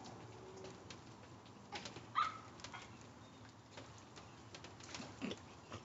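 Faint scattered drips and light taps in the rain, with a brief bird call about two seconds in.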